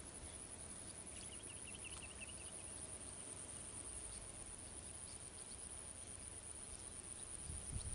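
Faint insect ambience: a steady high-pitched insect drone over a soft hiss, with a short run of chirps about a second and a half in.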